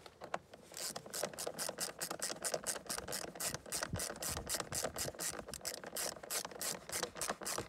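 Small ratchet wrench with an extension clicking steadily, about five clicks a second, as it runs a nut down onto a stud through a hole in the engine cover. The clicking starts about a second in.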